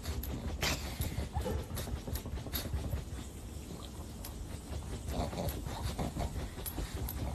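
Pug breathing noisily and snorting close to the microphone, with a few short dog vocal sounds about five seconds in.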